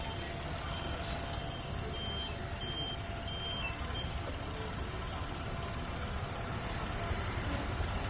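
City road traffic running steadily, with a vehicle's reversing alarm giving a run of short high beeps, about one every two-thirds of a second, that stops about four seconds in.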